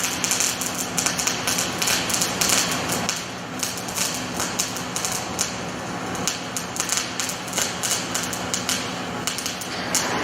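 Rotoweld 3.0 automated pipe spool welder at work: a dense, irregular crackle of the welding arc over a steady low electrical hum.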